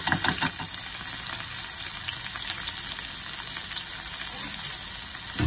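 Diced salted turnip sizzling in hot oil in a frying pan, a steady hiss. In the first half second the metal mesh strainer rattles as it is shaken empty over the pan.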